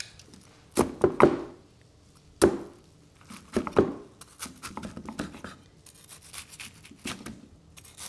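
Cleaver cutting through a crispy panko-crusted pork cutlet on a wooden chopping board: a few sharp knocks against the board in the first four seconds, then a run of light, quick crunching as the blade works through the crust.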